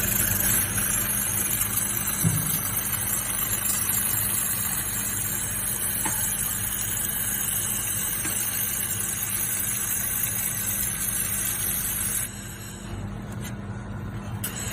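Handheld laser welding machine at work on brass: a steady machine hum under a bright high hiss. The hiss cuts off about twelve seconds in, leaving the hum.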